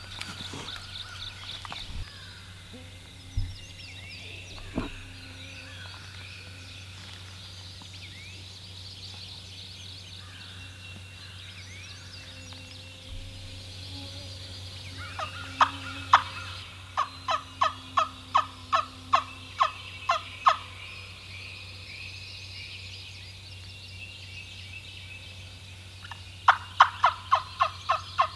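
Two series of turkey yelps, about three evenly spaced notes a second: one lasting about five seconds in the middle and another starting near the end. Songbirds sing throughout, with a few dull thumps in the first five seconds.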